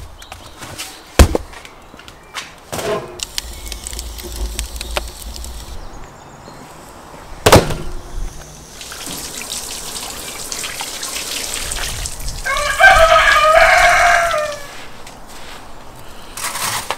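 A few sharp knocks as cardboard packs of coarse salt are set down on a table, then a spell of salt hissing and rustling as it is poured and worked by hand. A rooster crows once for about two seconds during the salt sound.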